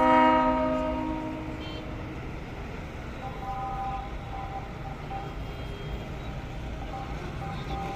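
Sleeper coach's horn sounding one loud blast of several tones together, fading over about a second and a half, over the low rumble of the idling engine. Fainter steady tones follow from about three seconds in.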